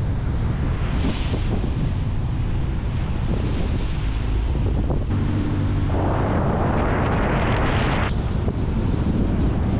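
Car driving on a rain-soaked road: a steady low rumble of wind on the microphone and tyre noise. About six seconds in, a louder hiss like tyres on wet pavement comes up and cuts off suddenly about two seconds later.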